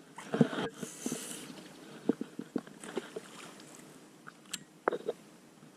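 Scattered clicks and knocks of fishing tackle and boat handling in a bass boat, with a brief rush of hiss about a second in.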